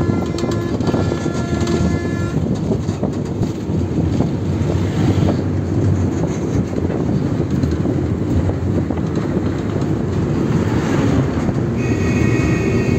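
Steady wind and road noise of a moving vehicle heard from on board. A horn sounds with several steady tones together during the first two seconds and again near the end.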